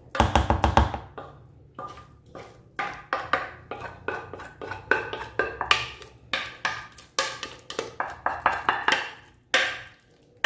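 Wooden spoon scraping and knocking inside a metal pot and against a metal bowl while thick cooked corn couscous is scooped out. A quick run of knocks comes in the first second, then irregular taps and scrapes, some with a short metallic ring.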